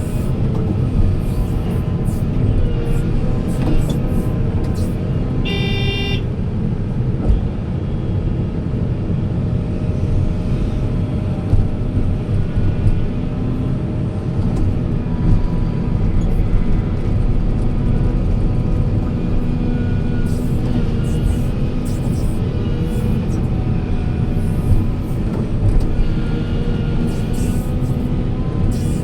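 Heavy machinery diesel engines running steadily with a loud low rumble, and a short vehicle horn toot about six seconds in.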